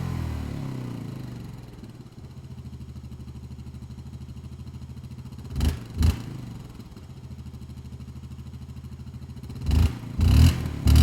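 Utility ATV's four-stroke engine settling back to a steady idle after a rev, then blipped twice briefly a little past halfway and a few more times near the end, rising into a longer rev right at the close.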